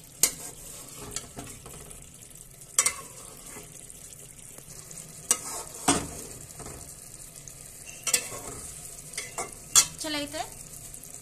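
Metal spatula stirring mutton kofta curry in a metal pot on the stove: the gravy sizzles steadily while the spatula clinks sharply against the pot about nine times, several in quick succession near the end.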